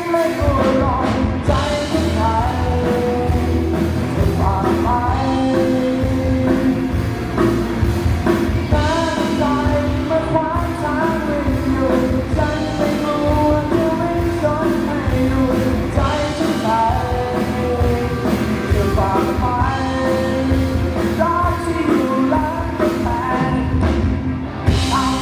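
A singer and a live band performing a rock song, the vocal melody carrying over steady drums and instruments.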